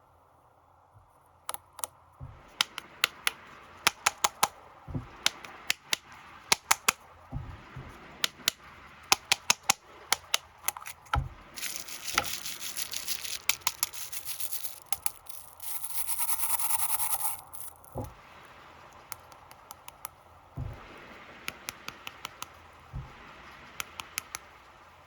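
Plastic snack wrappers being handled and unwrapped, crinkling in many sharp crackles and clicks. There are two longer rustling rasps near the middle.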